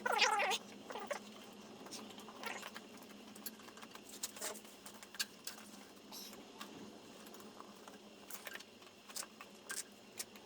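Scattered light clicks, taps and rubbing of hands working a thick rubber inner tube into a stiff tire on a motorcycle rim, with a short wavering cry right at the start.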